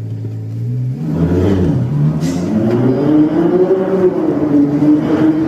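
Ferrari 812 Competizione's naturally aspirated V12 idling, then revved about a second in, its pitch climbing for a few seconds and easing back down near the end.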